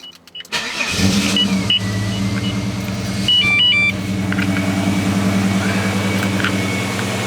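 Holden VS Commodore engine, fitted with extractors and a 2.5-inch cat-back exhaust, cranking briefly and catching about a second in, then settling into a steady idle. A few short electronic beeps from the car sound around the middle.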